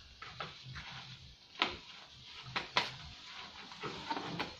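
Sharp clicks and taps of a glass jar with a metal lid being handled, with the captured Indian cobra inside. The two loudest come about one and a half and nearly three seconds in.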